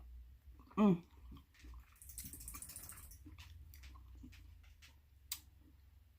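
Close-up eating and food-handling sounds: scattered small clicks and taps, a rustle between about two and three seconds in, and a short, loud vocal sound with a bending pitch about a second in.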